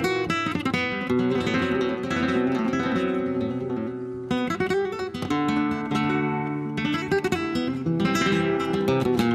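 Solo classical guitar playing a rumba: fast strummed chords with sharp percussive attacks, with a short drop in level about four seconds in before a strong new chord comes in.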